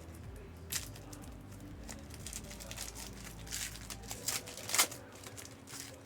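Foil trading-card packs being torn open and their wrappers crinkled while the cards are handled: a run of short crackly rustles, one sharper crackle late on.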